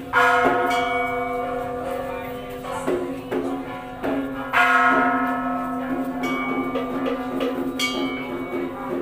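Temple bell struck twice, about four and a half seconds apart, each stroke ringing on and slowly fading, with lighter strikes in between.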